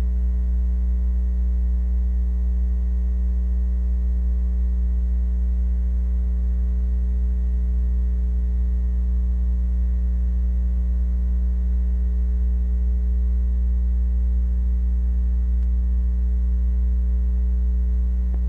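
Steady electrical mains hum on the soundtrack: a loud low buzz with a ladder of higher overtones. No music or animal sound is heard over it, where the film's music has dropped out of the transfer.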